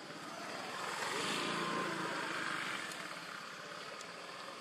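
A motor vehicle passing by, its sound swelling and fading over about two seconds around the middle.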